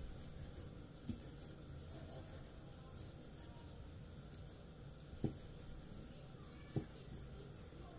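Kitchen knife slicing cooked egg, with three sharp knocks of the blade on the surface beneath, about a second in, after five seconds and near the end, and faint ticks between them.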